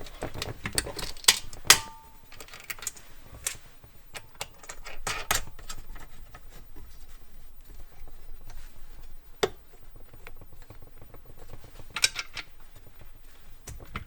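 Metal clinks and taps from a wrench and bolts being worked on scooter exhaust mounting parts. The clicks are scattered and uneven, some with a short metallic ring, busiest near the start and with a few sharp ones later.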